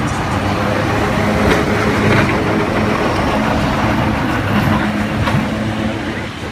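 Vintage electric tram rolling slowly past close by on street rails: a steady low motor hum and wheel rumble with a few sharp metallic clicks, easing off near the end as it moves away.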